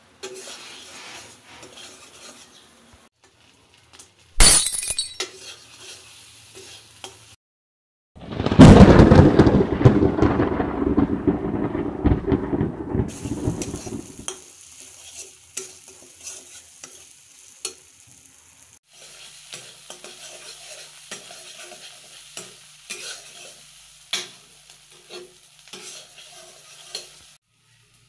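Tomato masala frying in hot oil in a wok, sizzling while a steel spatula stirs and scrapes the pan. About eight seconds in, a loud burst of sizzling fades away over about six seconds.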